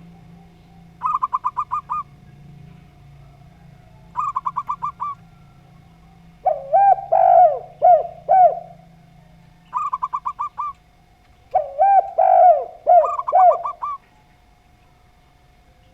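Zebra dove and spotted dove cooing: three short, rapid trills of quick notes alternate with two longer runs of lower, looping coos, over a faint steady hum.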